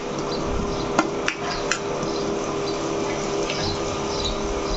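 Chopped onions sizzling in hot oil in a non-stick pan as they are sautéed, stirred with a steel spoon that clicks against the pan a few times about a second in, over a steady hum.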